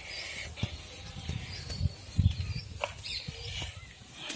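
Soft low thumps of footsteps and phone handling as the camera is carried, with a few faint bird chirps.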